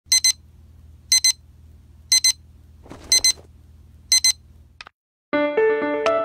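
Digital alarm clock beeping in quick pairs about once a second, five times, with a brief rustle near the middle. The beeping stops, and after a short silence music begins near the end.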